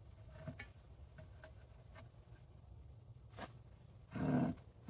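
Faint scattered clicks and light wooden knocks as a board is handled and set into a woodworking vise, with a short louder scrape about four seconds in.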